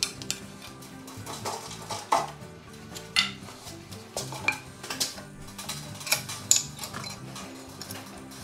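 Steel hand tools clinking and knocking against a cast metal wagon hub and its bolts while the bolts are worked and a wooden spoke is fitted: a string of sharp metallic knocks, roughly one a second.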